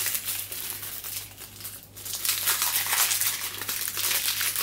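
Plastic shrink-wrap crinkling and tearing as it is pulled off a deck of game cards: a dense run of crackles with a short lull about two seconds in.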